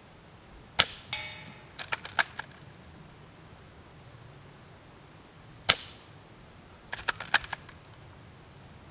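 Two shots from a Tokyo Marui VSR-10 G-Spec spring-powered bolt-action airsoft rifle, about five seconds apart, each a sharp crack. Each shot is followed about a second later by a quick run of clicks from the bolt being worked. A brief ringing rattle comes right after the first shot.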